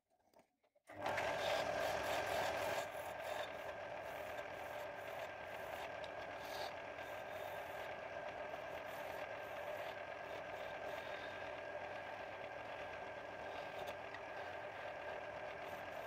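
Wood lathe starting up about a second in and then running steadily with a high whine, loudest for the first couple of seconds. A hand-held turning chisel cuts a small wooden knob spinning in the lathe's chuck.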